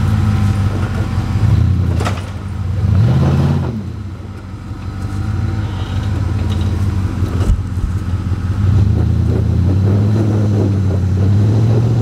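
Jeep bogger's engine revving in surges, its pitch rising and falling twice with a lull between. Two sharp knocks, one about two seconds in and one about seven and a half seconds in.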